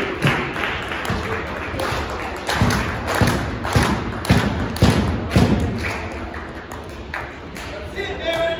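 A run of six heavy thuds, evenly spaced at about two a second, over faint background voices.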